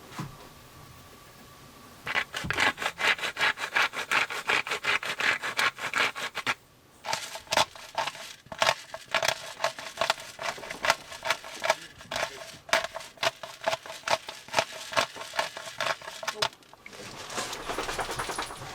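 Rapid, rhythmic scraping and tapping strokes of a kitchen utensil against cookware, several strokes a second with a faint metallic ring. They start about two seconds in, pause briefly near the middle and stop shortly before the end.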